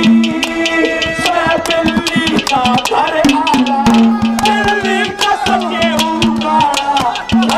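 Haryanvi ragni sung live by a male singer into a microphone, over a quick, steady percussion beat and a held low note.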